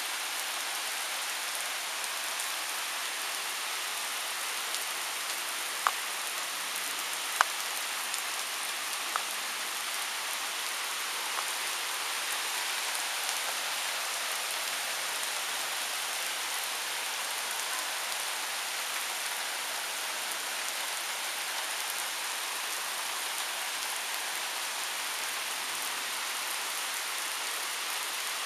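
Thunderstorm rain falling steadily on a paved driveway, an even hiss, with a few sharp ticks around six, seven and nine seconds in.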